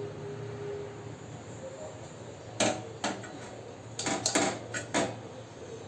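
Kitchen utensils clinking and knocking against a pot or glass while the finished kadha is strained and poured: a sharp strike about two and a half seconds in, another near three seconds, a quick cluster around four seconds and a last one near five. A low steady hum runs underneath.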